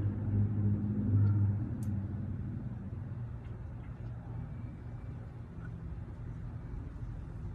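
Low rumble of a vehicle engine, louder for the first two seconds and then fading to a steady lower hum, with a single sharp click about two seconds in.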